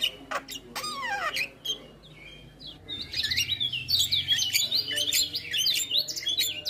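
Javan myna singing: a few quick descending whistled notes, a short lull, then from about three seconds in a fast, dense run of varied chattering whistles and squeaks.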